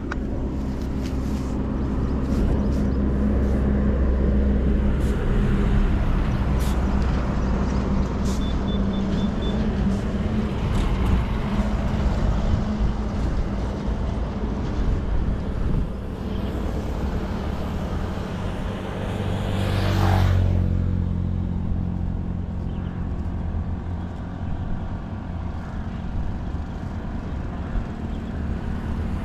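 Motorcycle engine running steadily at road speed with wind and road noise, heard from on the moving bike. About twenty seconds in, another vehicle passes close by in a brief rising and falling rush, and a short run of high beeps sounds about eight seconds in.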